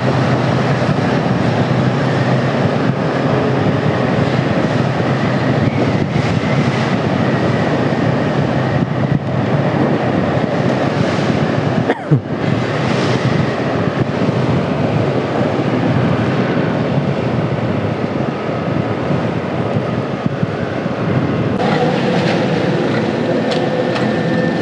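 Steady rushing wind and road noise from a Yamaha NMAX scooter ridden at about 43 km/h, with its single-cylinder engine underneath. In the last few seconds it slows to a stop and the engine idles.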